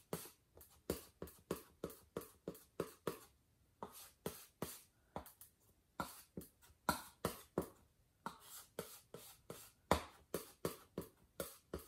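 Oil paint being mixed on a palette with a palette knife: quick, repeated scraping and tapping strokes, about three a second, as a dark colour is worked together.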